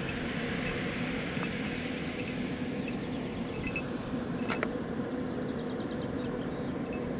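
Scattered faint jingling of a small bell, like those worn by scent hounds hunting hare, with one sharper clink about four and a half seconds in, over a steady hiss and low hum.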